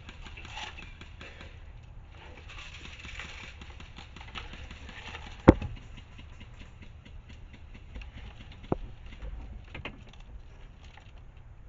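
Faint rustling background broken by two sharp single snaps. The first, about halfway through, is the loudest sound. The second, weaker one comes about three seconds later.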